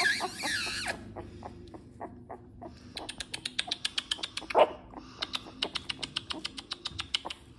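About-three-week-old pocket bully puppies whining and squeaking near the start, then a fast run of short clicks for a few seconds, with one brief puppy yelp in the middle of it.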